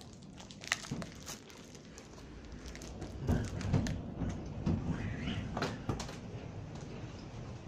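Camera handling noise, with scattered clicks and knocks about a second in and a door being opened by its knob midway, along with a low rumble through the middle and a couple more clicks near the end.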